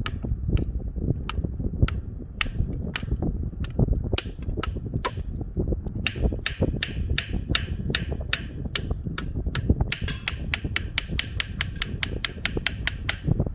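Repeated sharp knocks, spaced irregularly at first, then quickening to an even four or five a second near the end, over a low rumble of wind on the microphone.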